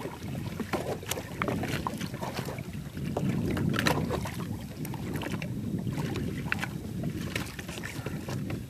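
Wind buffeting the microphone over a jet ski on open water, a steady low rumble, with scattered small knocks and clicks.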